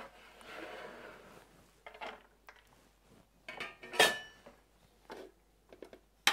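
Kitchen knife scraping chopped vegetables across a wooden cutting board, then a series of knocks and clinks as the pieces are swept into a clear container and knife and container hit each other. The loudest clink, about four seconds in, rings briefly.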